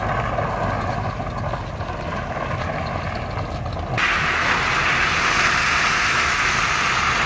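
A motor vehicle running with a steady low rumble; a louder rushing hiss sets in suddenly about four seconds in.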